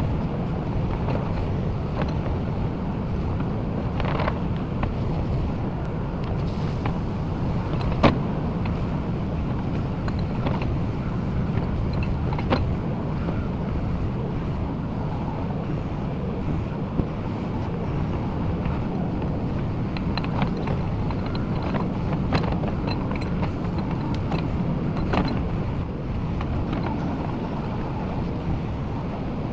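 JCB 4CX backhoe loader's diesel engine running steadily, with a few sharp knocks scattered through it, the loudest about eight seconds in.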